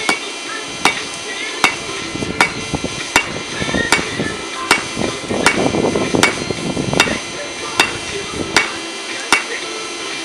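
Hand hammer striking a hot steel railroad spike on an anvil, forging it toward a knife blank: an even rhythm of about one ringing blow every three-quarters of a second, some thirteen strikes. A rougher noise swells under the blows in the middle.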